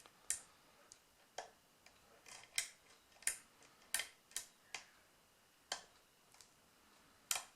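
Small, sharp metallic clicks at irregular intervals from a lock pick working the pin stack of a rim cylinder under tension from a tension wrench.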